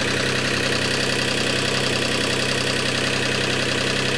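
Generator engine of a home-built cogeneration unit running steadily with no electrical load: an even, unchanging running sound with a fast regular pulse.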